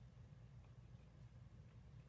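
Near silence: a low steady room hum with a few faint ticks.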